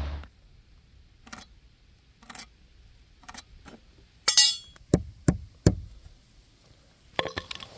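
Scattered light clicks and clinks of objects being handled, with a short rattle about four seconds in, three sharper knocks just after, and a quick run of clicks near the end.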